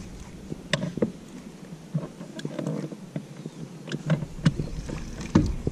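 Bow-mounted electric trolling motor running at low speed with a faint buzz. Scattered short clicks and knocks are heard throughout.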